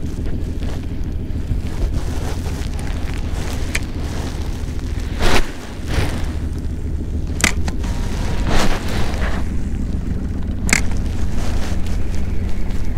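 Spinning rod cast and reel worked by hand: a loud swish about five seconds in, then a few sharp clicks, over a steady low rumble.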